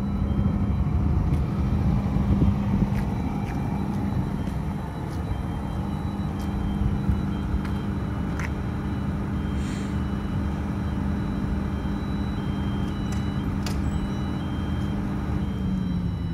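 Scania DC12 six-cylinder diesel generator set with a Stamford 350 kVA alternator running at steady speed inside its supersilent canopy, a constant low hum. Near the end its note begins to drop as the engine slows.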